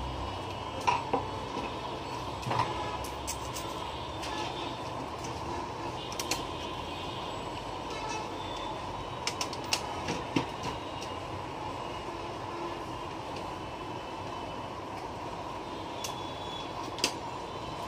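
Scattered sharp clicks and knocks of plastic and metal parts of a disassembled laser printer being handled, over a steady background hum.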